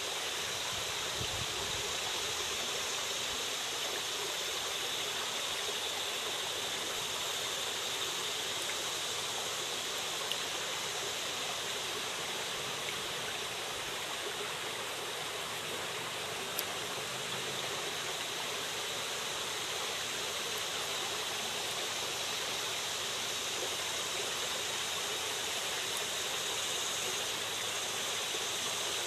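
Shallow creek water running steadily over and around a rock.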